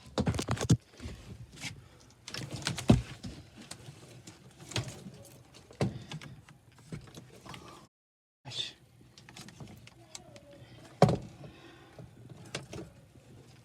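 Irregular knocks, clicks and rustles of handling, the loudest knocks about three and eleven seconds in, with a short dead-silent gap about eight seconds in.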